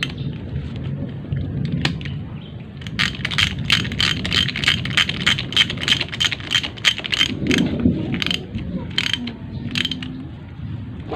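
Ratchet wrench clicking in quick runs, about five clicks a second, as the magneto flywheel nut on a Bajaj CT 100 engine is run down; the clicking starts a few seconds in and comes back briefly near the end.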